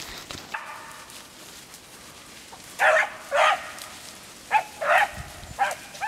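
Rabbit-hunting dogs barking while running a rabbit: a faint bark about half a second in, then a run of about six short, clipped barks from about three seconds in.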